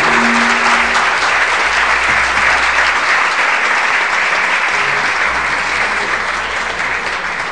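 Audience applauding at the end of a song, with the last guitar chord ringing out under it in the first second; the clapping slowly thins toward the end.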